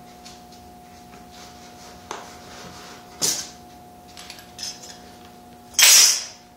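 Scattered knocks and clinks of metal tools and parts being handled, with a louder clatter near the end, over a steady hum.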